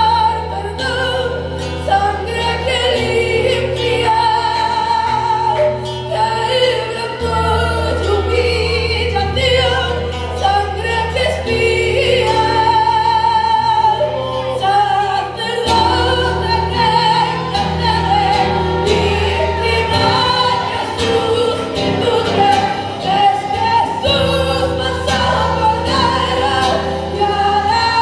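A woman singing a praise song into a microphone, amplified through the room's sound system, with acoustic guitar accompaniment over long-held low bass notes that change every few seconds.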